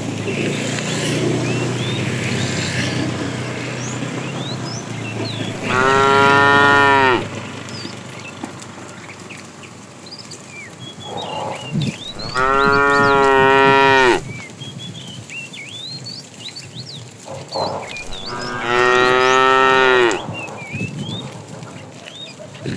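Cattle mooing: three long, loud moos about six seconds apart, with a couple of fainter shorter calls between them.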